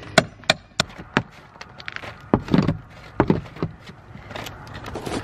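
Claw hammer knocking and prying at old asphalt shingles on wooden roof boards: a string of sharp, irregular knocks and scrapes.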